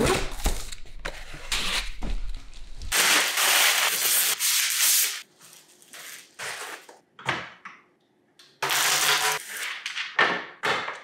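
Unboxing noises: a knife slitting packing tape on a cardboard box, then a plastic bag and foam packing blocks rustling and scraping. There are a few sharp knocks, and a quieter lull in the middle.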